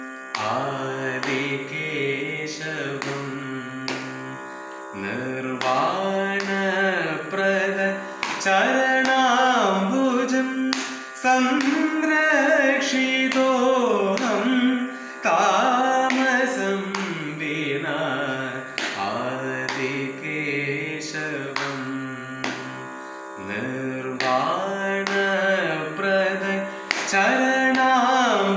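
A man singing a Carnatic composition in raga Vijayashree, set to Rupaka tala, in long sliding phrases over a steady drone, with sharp percussive strokes here and there.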